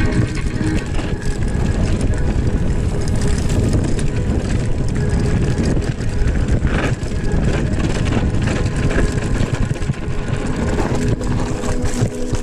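Wind rumbling over the microphone of a camera riding down a dirt trail on a mountain bike, with many small clicks and rattles throughout.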